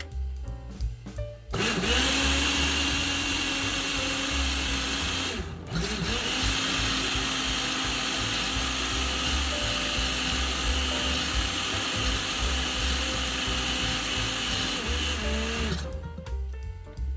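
Electric blender running: the motor spins up about a second and a half in, stops briefly and starts again, then runs steadily for about ten seconds before winding down. Background music with a drum beat plays underneath.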